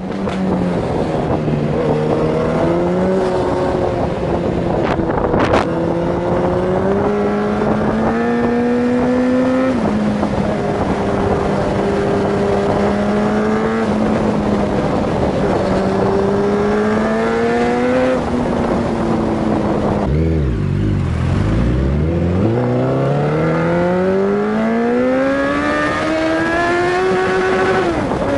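Yamaha FZ8's inline-four engine running on the road, its pitch climbing under throttle and dropping back at each upshift, over steady wind noise. About two-thirds of the way through it slows to a low pitch, then pulls away in one long rising pull.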